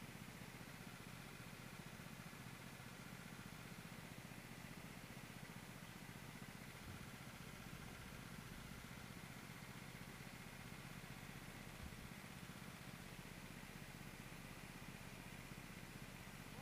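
Faint, muffled, steady drone of a racing kart's engine, without clear rises or falls in pitch.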